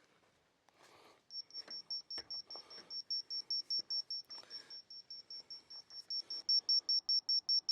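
An electronic level's beep repeating about four times a second, speeding up near the end as the board is brought towards level.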